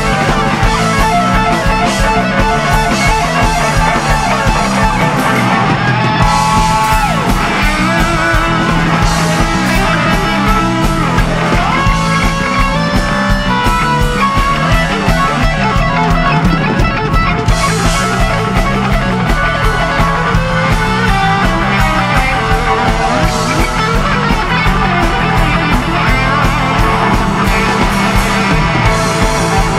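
Live rock jam band playing an instrumental passage: electric guitar over keyboards and drums, loud and continuous.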